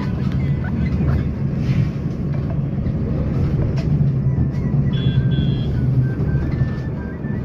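Steady low rumble of a moving vehicle, with a short high double beep about five seconds in.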